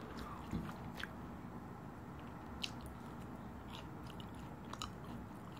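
Faint close-up chewing of a cheese-sauce-dipped french fry, with a few small wet mouth clicks and smacks scattered through.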